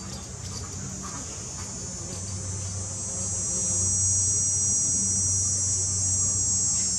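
Insects droning outdoors: a steady, high-pitched shrill buzz that swells louder about three seconds in, over a low steady hum.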